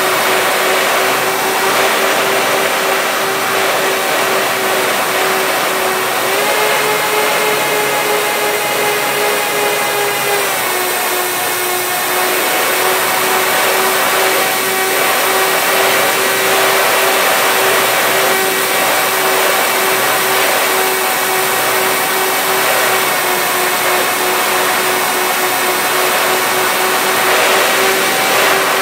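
Electric motors and propellers of a HobbyKing B-25 Mitchell radio-controlled model whining steadily in flight, heard from a camera on the plane with wind rushing past it. The pitch steps up about six seconds in and drops back about four seconds later.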